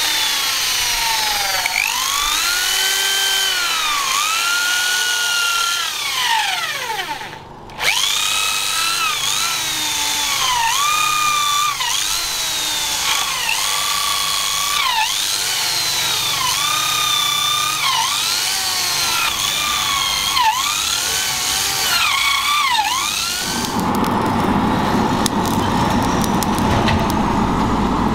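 Electric drill boring into the end of a wooden handle with a twist bit, its motor whine rising and falling in pitch every second or two as the trigger is squeezed and eased. About five seconds before the end it gives way to the steady rush and hum of an electric blower fanning a charcoal forge.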